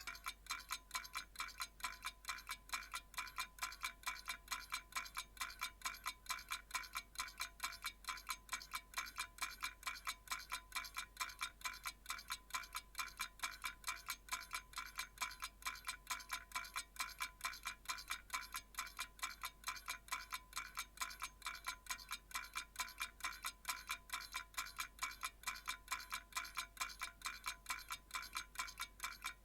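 Old-fashioned analog alarm clock ticking steadily, with several crisp, evenly spaced ticks a second.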